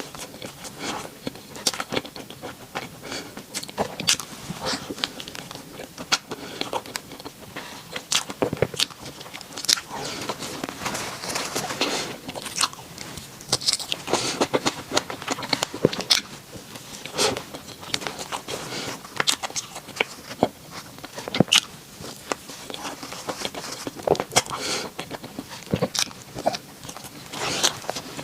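Bread being bitten and chewed close to the microphone: irregular crunchy, crackling bites and wet chewing, with breathing that is a bit loud between bites.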